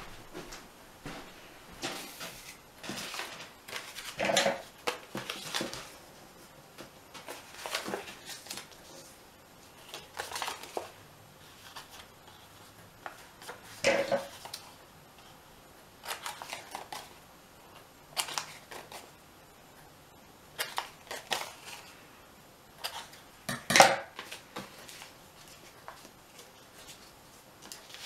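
A sheet of paper being folded and creased by hand: short, irregular rustles and crinkles with quiet gaps between, and a few sharper taps on the table. The loudest crackle comes a few seconds before the end.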